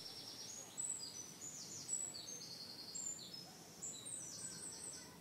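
Faint garden birdsong: a small songbird's high chirps and short rapid trills, repeated again and again.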